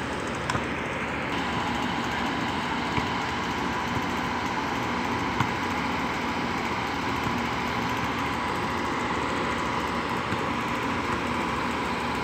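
Steady mechanical hum with a faint steady tone in it, broken by a few short, faint knocks.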